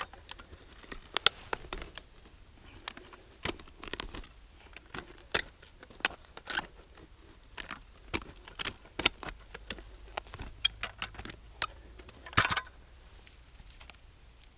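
Green folding shovel digging into forest soil: irregular scrapes and chops of the steel blade as earth is loosened and scooped out of a small hole, with one louder strike near the end.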